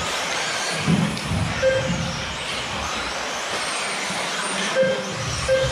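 Several 1/10 scale electric 2WD off-road RC buggies running on an indoor astroturf track: a steady mix of motor whine and tyre noise, with four sharp knocks.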